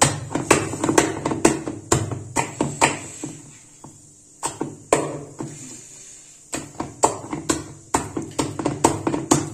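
Wheat flour and semolina batter being beaten by hand in a steel bowl: wet slaps about twice a second, pausing briefly a little before halfway as a handful is lifted and let fall back.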